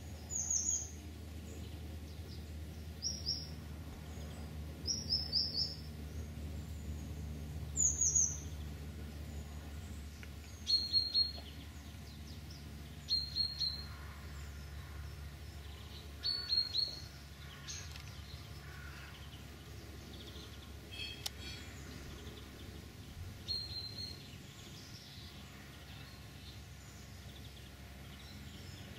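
Small songbird chirping in short groups of two to four high, quickly falling notes, repeated every second or few seconds and thinning out in the last third, over a steady low background hum.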